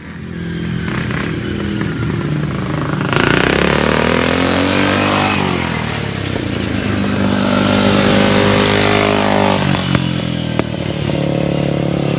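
Racing lawn mower's small engine running hard, its pitch climbing as it accelerates and dropping as it eases off, twice over. Two sharp clacks sound near the end.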